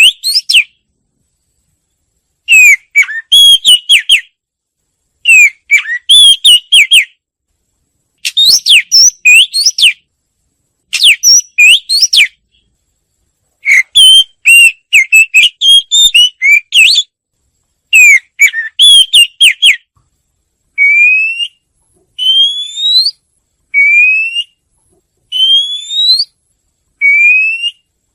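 Wagtail song: bursts of quick, twittering whistled notes, each phrase one to two seconds long with pauses between. In the last third, the song changes to single clear rising whistles, five in a row.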